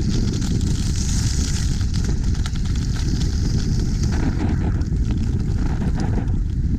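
Wind buffeting an action camera's microphone during a downhill ski run: a steady, loud rumble, with the hiss of skis sliding over the snow above it, strongest about a second in.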